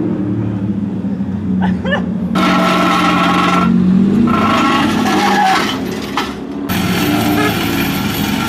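A battered Nissan demolition-derby car's engine runs steadily as the car drives slowly. Two loud screeching bursts, each about a second and a half long, come about two seconds in and again a little later, and a harsh noise sets in near the end.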